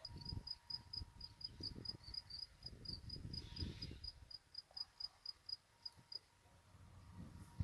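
Insect chirping: an even run of short, high chirps at one pitch, about five a second, that stops about six seconds in, over low, irregular thumps and rumble.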